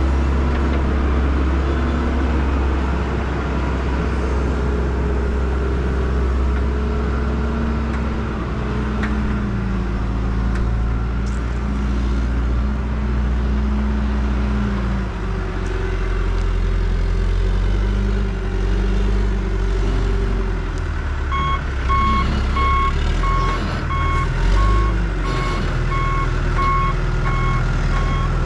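Backhoe engine running while it works the driveway, its engine note shifting about halfway through. From about three quarters of the way in, its reversing alarm beeps over and over as it backs up.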